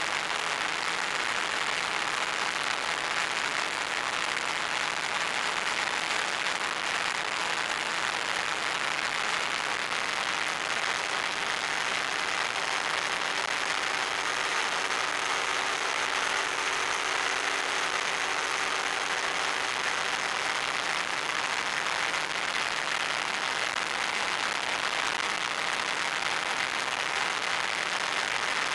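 Radio-controlled FPV plane in flight: a steady rushing noise of airflow and propeller, with a faint motor drone whose pitch wavers slightly partway through.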